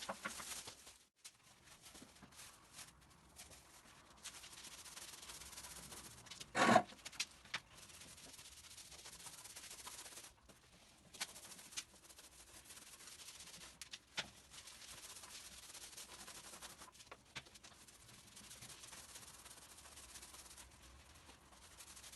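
Paint roller working over a plastered wall: a steady, soft rubbing swish. A brief louder knock or scrape comes about a third of the way in, and a few faint clicks follow later.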